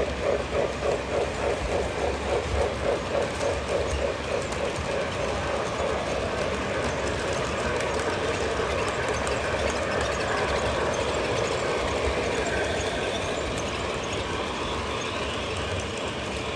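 O gauge model train running on its track. For the first few seconds there is a rhythmic beat of about three pulses a second, then a steady rolling rumble.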